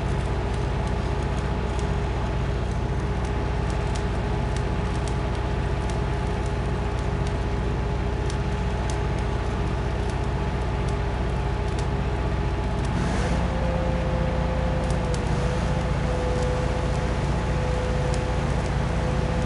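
Shop machinery running steadily, with a low hum, a steady whine and light crackling. About two-thirds of the way through, the whine steps up to a higher pitch as the machine changes speed.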